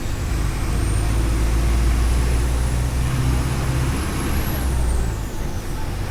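Mercedes-Benz OF 1418 bus diesel engine running under load, with a thin high whine that climbs slowly in pitch and then drops away about four and a half seconds in as the engine eases off.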